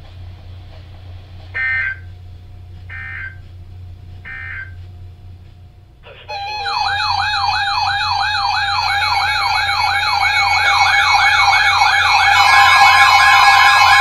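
A weather radio broadcast sends three short screeching data bursts, the SAME header of an Emergency Alert System message. About six seconds in, a row of weather alert radios goes off together with a fast warbling siren alarm and several steady beeping tones layered over it, growing louder as more radios join near the end. The alarm signals a Severe Thunderstorm Warning being received.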